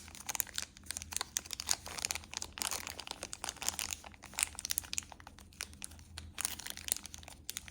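Small plastic parts bag crinkling and crackling as it is handled and opened to get at the replacement bearings.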